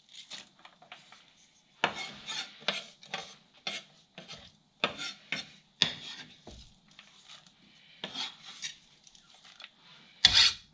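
Chef's knife scraping chopped red onion across a wooden cutting board and into a metal pan, in irregular scrapes and knocks, with one sharper, louder knock near the end.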